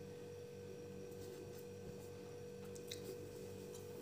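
Faint steady electrical hum, a single held tone over a lower buzz, with a few faint ticks of a pen on paper in the middle as the last words and full stop are written.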